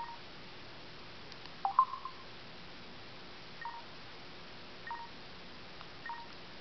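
Faint telephone keypad beeps: short electronic blips, each a quick high note stepping down to a lower one, repeating about once a second, with one louder chirp about two seconds in.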